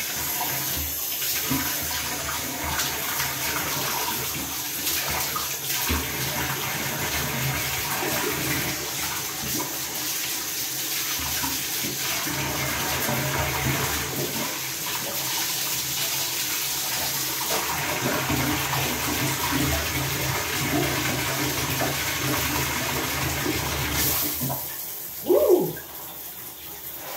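Water running steadily from a bathtub tap in a tiled shower, cutting off about three seconds before the end. A short loud sound that rises and falls in pitch follows.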